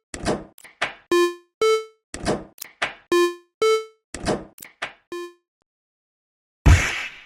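Animated level-crossing sound effects: ringing bell-like dings in pairs, a lower note then a higher one, alternating with short knocks at about two a second. They stop about five seconds in, and a single loud thud follows about a second and a half later.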